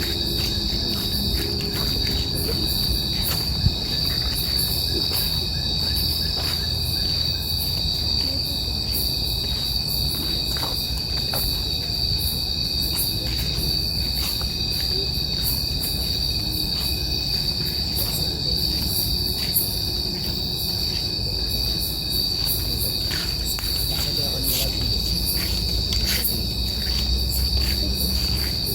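Chorus of night insects trilling continuously on a steady high pitch, with a second, lower steady tone and many scattered short clicks.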